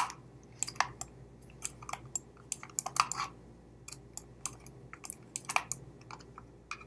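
Small screwdriver working a screw out of the plastic underside of a Logitech M305 wireless mouse: a run of irregular small clicks and ticks as the tip turns in the screw head and the plastic case is handled.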